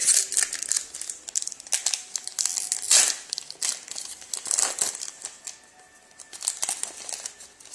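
Plastic wrapper of a trading card pack crinkling and tearing as it is ripped open by hand, in an irregular run of crackles.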